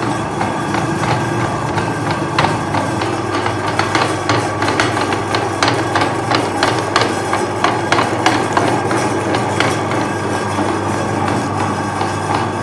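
Electric meat grinder running with a steady hum, with irregular clicking and knocking throughout, as peeled bananas are ground and pushed out through the plate as a mash.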